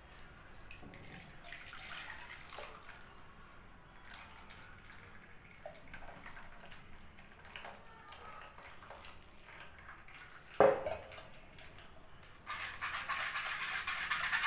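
Thin chocolate pudding batter trickling and splashing faintly through a steel mesh strainer into a pan. There is one sharp knock of metal about ten and a half seconds in. Near the end a louder, steady scratchy scraping starts.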